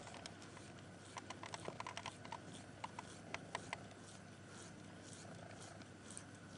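Soft, quick wet clicks and smacks from a mother cat's mouth just after giving birth, bunched between about one and four seconds in.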